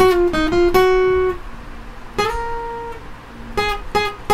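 Steel-string acoustic guitar picking a slow single-note lead line, tuned down a half step: a quick run of plucked notes, a held note about a second in, another long note halfway through, and a few short notes near the end.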